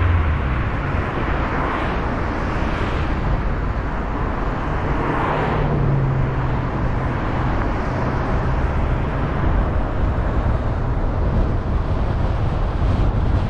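Road noise from a car driving through town traffic: a steady rumble of tyres and engine, with a few passing vehicles swelling up and fading. The loudest pass comes about five seconds in.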